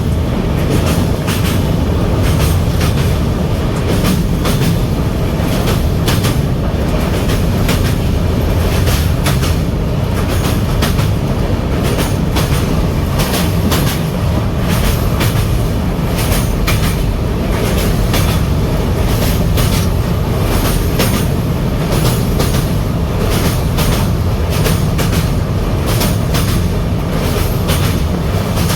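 Passenger train running at speed: a steady heavy rumble of the coach with frequent clicks of the wheels over rail joints.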